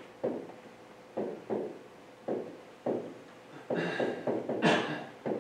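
Stylus tapping and scraping on the glass of an interactive touchscreen display as words are written: a string of short taps, spaced out at first, then coming quicker and busier in the last two seconds.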